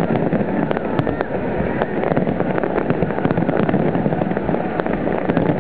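Fireworks display at full intensity: aerial shells and rockets bursting in a dense, overlapping barrage of bangs and crackles, with no gaps between them.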